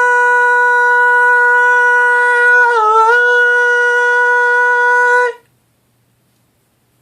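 A single long-held high musical note, very steady, that dips briefly in pitch about three seconds in and then cuts off abruptly, leaving near silence for the last second and a half.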